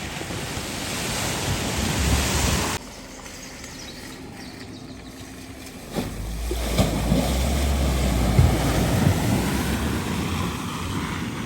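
Water rushing and splashing as a vehicle drives through a flooded ford, with wind buffeting the microphone; the sound cuts abruptly about 3 seconds in to a quieter stretch, then jumps back about 6 seconds in with a low rumble and a few thumps.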